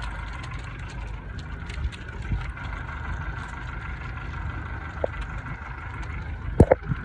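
Boat motor idling steadily at low speed, a constant low rumble. A single sharp knock sounds near the end.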